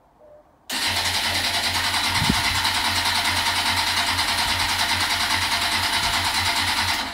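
Electric starter cranking a 2007 Kawasaki ZX-10R inline-four for about six seconds with an even, rapid pulsing, without the engine firing. It starts suddenly under a second in and stops abruptly near the end. The engine will not start after a Mazda RX-8 fuel pump was fitted, and the owner suspects the pump's wiring.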